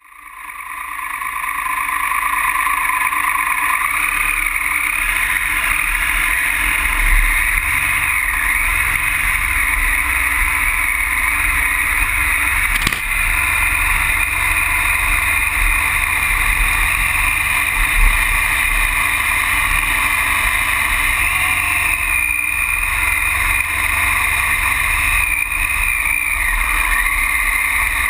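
Triumph Tiger Explorer's three-cylinder engine running steadily as the bike rides a rough gravel track, mixed with tyre and wind noise, picked up by a camera mounted low by the front wheel. The sound fades in over the first couple of seconds, with a brief knock about halfway through and another later on.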